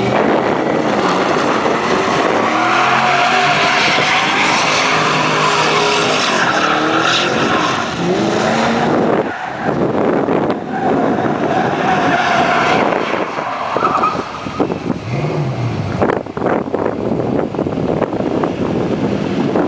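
A 2007 Ford Mustang GT's 4.6-litre V8 revving hard, its pitch rising and falling, while the rear tyres spin and squeal through a smoky burnout and donuts. The level drops somewhat in the last few seconds as the revs come down.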